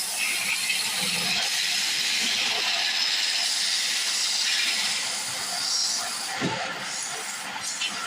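Wood lathe running while a turning tool cuts into the spinning wood of a table leg, making a steady, loud shearing hiss.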